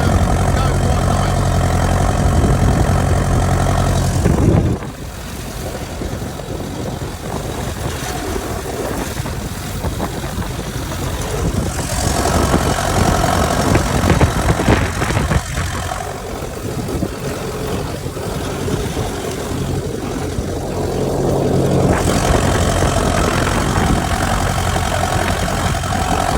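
Tractor engine running steadily and loud for the first few seconds, then suddenly quieter from about four and a half seconds in, and growing stronger again near the end.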